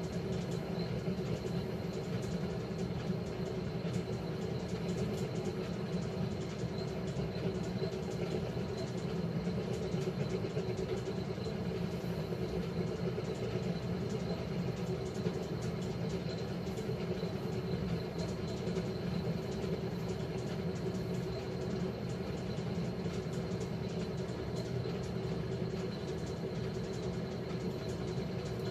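1957 Blackstone 350 automatic washer running steadily with its stainless tub spinning: an even motor and transmission hum with a steady tone in it.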